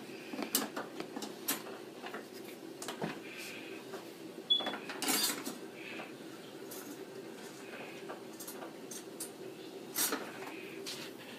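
Small metal baking pan being pushed into the slot of an Easy Bake toy oven: scattered clicks and knocks, a sharp click about halfway through followed by a short scraping rattle, and another knock near the end, over a faint steady hum.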